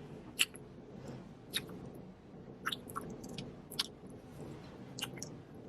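Two people kissing: a string of short lip smacks, about seven, coming irregularly roughly once a second.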